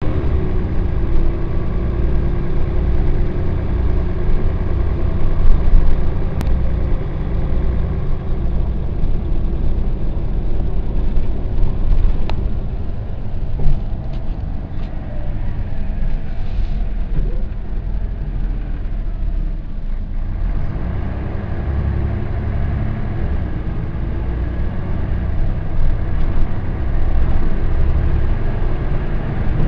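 Volvo B10B bus's diesel engine running, with its cooling fan not running. The engine note dips about fourteen seconds in and climbs again from about twenty seconds in.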